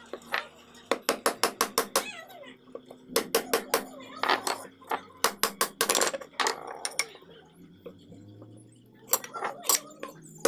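Steel wood chisel chopping and paring the end of a wooden hammer handle, in quick runs of sharp clinking taps, several a second, with short pauses between runs.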